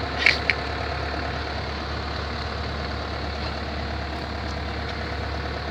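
Komatsu PC130F-7 excavator's diesel engine idling steadily, with two short sharp clicks just after the start.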